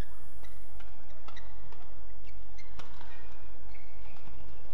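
Badminton doubles rally: sharp racket strikes on the shuttlecock at an irregular, quick pace, with short squeaks of players' shoes on the court floor in the second half.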